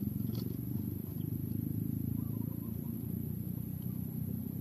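Wind buffeting the microphone: a steady, fluttering low rumble.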